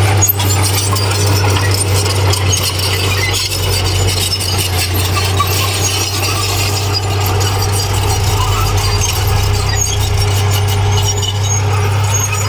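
Diesel engine of heavy earthmoving machinery running steadily as a low drone, with scattered metallic clinks and squeaks over it.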